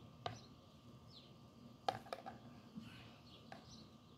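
Scattered light clicks and taps of metal tweezers against a plastic bowl while picking up tomato seeds, the loudest a little under two seconds in. Faint bird chirps can be heard in the background.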